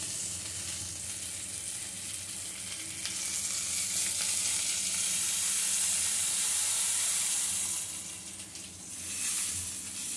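Small whole fish frying in hot mustard oil in a pan: a steady sizzle that grows louder in the middle and drops away briefly near the end.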